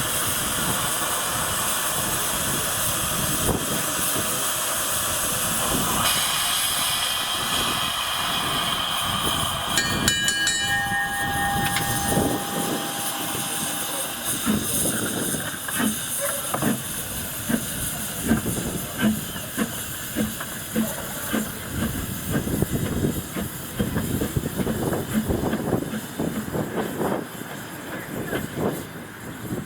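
Double Fairlie steam locomotive James Spooner II hissing steadily with escaping steam, sounding its whistle about ten seconds in, then working with a run of exhaust beats as it gets moving.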